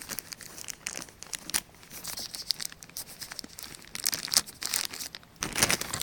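Clear plastic bag crinkling as a hand handles and pulls it off a boxed solar charge controller, in irregular crackles that grow louder near the end.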